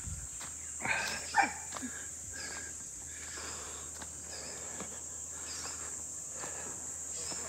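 Steady high-pitched buzz of insects such as crickets, with a few brief sharper sounds about a second in.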